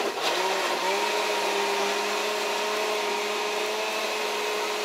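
Electric countertop blender running with liquid in the jar. Its motor whine dips and wavers briefly near the start, then holds at a steady pitch.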